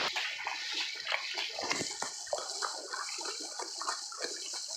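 Shallow stream water splashing and gurgling over rocks in quick, irregular spatters.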